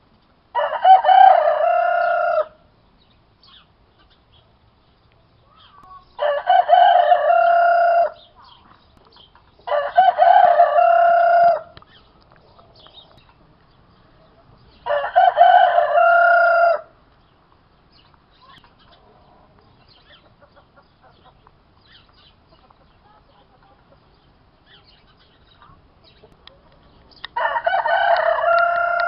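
A cockerel crowing five times, each crow lasting about two seconds. Four crows come every few seconds, then after a long pause a fifth begins near the end.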